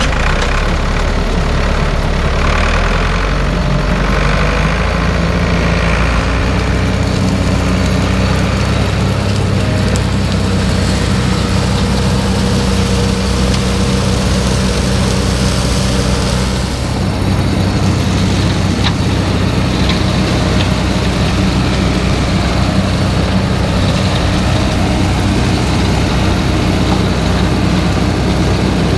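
Ford farm tractor's engine running steadily under load, driving a pull-type forage harvester through the PTO as it chops grass and blows it into the trailing forage wagon.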